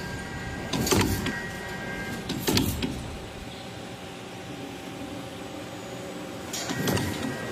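Cereal bar forming and cutting line running: a steady machine hum with faint whining motor tones, broken by three louder knocks about a second in, about two and a half seconds in, and near the end.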